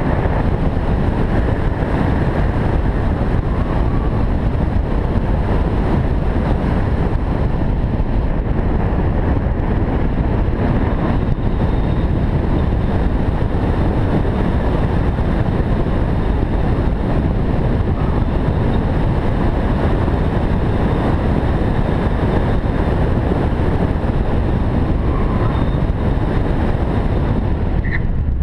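Volkswagen GTI Mk6 driven flat out through an autocross course: a steady rush of wind on the camera microphone mixed with engine and tyre noise, with no breaks.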